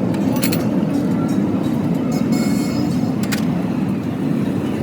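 A vehicle engine running steadily, with a couple of short clicks.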